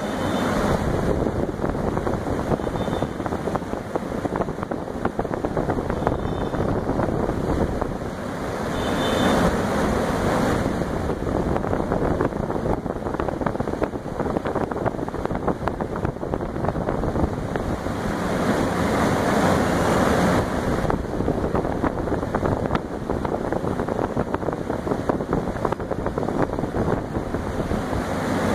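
Alugen 6K-I ST portable evaporative air cooler running, its fan blowing a steady rush of air into the microphone that swells and eases like gusts of wind.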